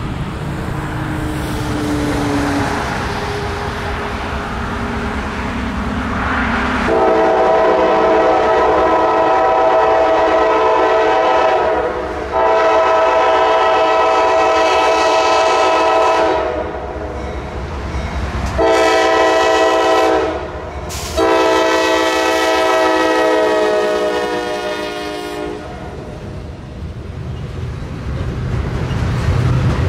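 Diesel freight locomotive's multi-note air horn sounding the grade-crossing signal: two long blasts, a short one and a final long one, over the rumble of the approaching train, which grows louder near the end.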